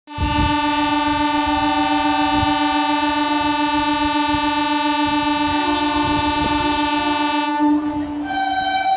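Train horn sounding one long, steady held blast for about seven and a half seconds. Near the end it shifts to a different held pitch.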